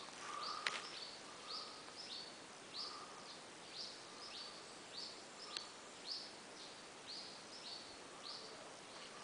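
A bird calling in a steady series of short, high chirps, about two a second, with a lower note under some of them. A single sharp click just under a second in.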